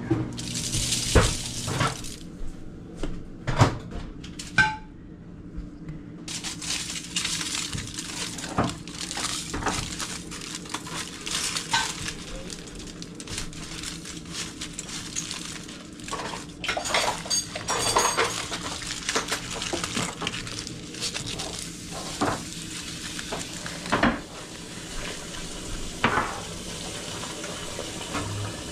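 Pans, dishes and cooking utensils knocking and clinking at irregular moments, with a busier run of clatter about two-thirds of the way in, over a steady hiss.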